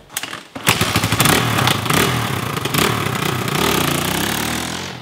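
Dual-sport motorcycle engine coming in loud about a second in and revving as the bike rides off over dirt, dying away near the end.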